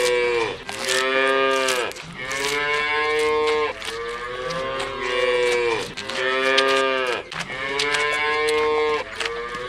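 Cows mooing: a string of long moos, one after another, each lasting about a second and a half with a short break between.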